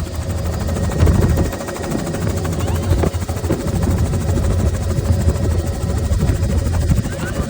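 Helicopter rotor and engine running steadily and loudly, a heavy low drone with a faint constant whine above it.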